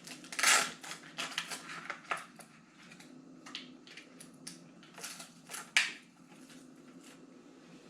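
Hands handling an RC car's battery, plastic parts and wiring: irregular clicks, rattles and rustling, with a louder crunch about half a second in and a sharp click near six seconds.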